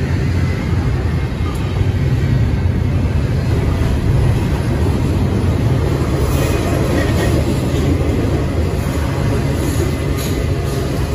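Union Pacific double-stack intermodal freight train rolling past close by: a steady, loud, deep rumble of the container well cars' wheels on the rails.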